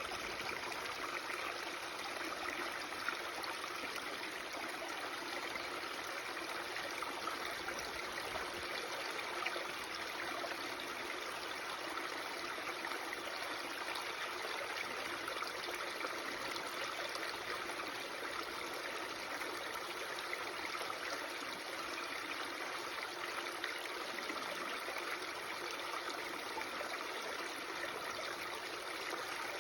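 A babbling stream: running water making a steady, even rush.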